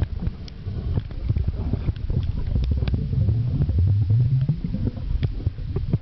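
Muffled low rumbling of water moving around an underwater camera, with many irregular clicks and knocks from the camera and its housing, and a wavering low hum about halfway through.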